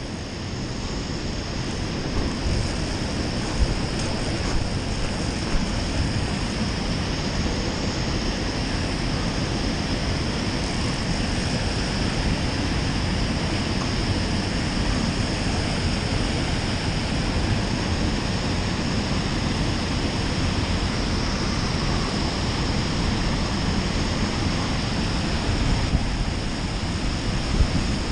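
Steady rush of river water pouring over a low dam spillway and through the whitewater below it.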